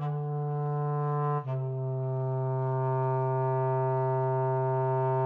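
Instrumental music: a low brass-like instrument plays two sustained notes, the second slightly lower and held steadily for about four seconds as a closing note.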